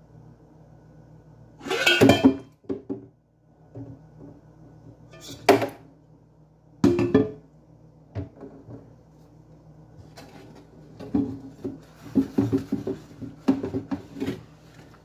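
Metal pots and a stainless bowl being washed by hand with a sponge: a few loud clanks in the first half, then a quicker run of scrubbing and clinking in the last few seconds.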